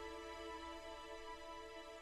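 Soft, slow background music with sustained held notes.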